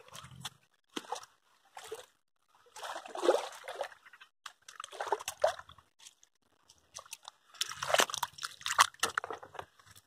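Footsteps in flip-flops on wet mud and in shallow muddy water: irregular squelches and sloshes, about one a second at first, then longer and busier splashing.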